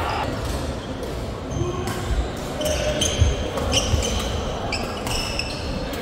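Court shoes squeaking on a sports-hall floor, many short high squeaks, with dull footfall thuds as badminton players move on court.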